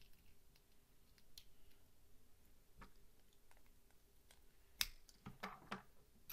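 Faint clicks and taps of small plastic Lego bricks being handled and fitted together, a few sparse clicks with the sharpest about five seconds in.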